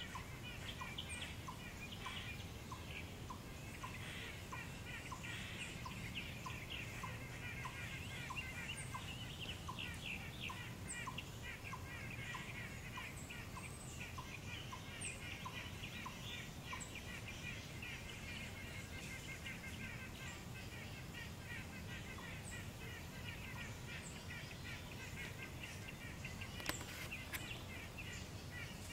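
A chipmunk giving short, repeated chucking barks, about two a second and very regular, its cheeks stuffed with food. A dense high chatter of birds or insects and occasional high chirps run underneath.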